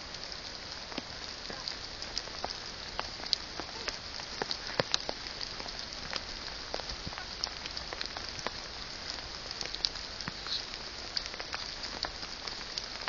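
Light rain pattering: a steady hiss with scattered, irregular sharp taps of drops.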